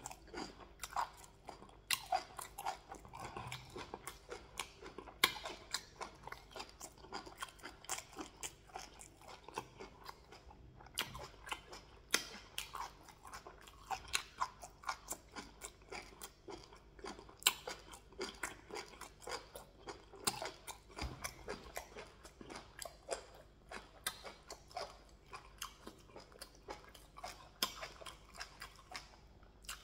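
Chewing and mouth noises of a man eating white rice with waterleaf soup by hand: an irregular run of many short smacks and clicks.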